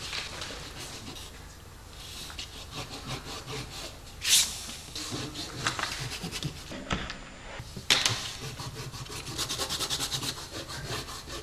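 Pencil scratching on paper in quick back-and-forth strokes, with two louder sharp scrapes about four and eight seconds in and a fast run of strokes near the end.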